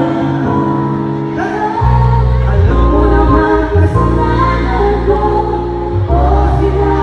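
Live concert music over a PA system: a song's backing track with vocals sung into microphones. A deep, heavy bass line comes in about two seconds in.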